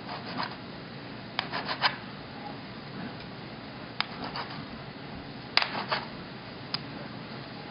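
Metal bench scraper chopping through dough, each cut ending in a short scrape and tap of the blade on parchment paper over the stone counter, in about five brief clusters.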